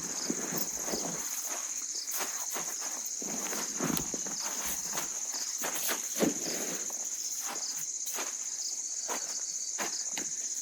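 Steady, high-pitched insect chorus in the dusk forest, with irregular footsteps and rustling close by; the loudest rustles come about four and six seconds in.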